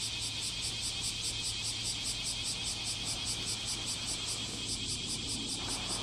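Chorus of bear cicadas (kumazemi) singing together, a dense high pulsing about six pulses a second, over a steady low background rumble.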